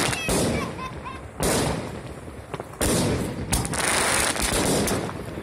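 Aerial fireworks bursting overhead: a series of sharp bangs about a second apart, with a continuous dense crackle from glittering crackling stars between them.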